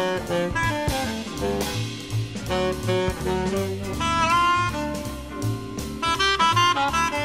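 Background jazz music: a saxophone-led melody over a stepping bass line and a drum kit with regular cymbal strokes.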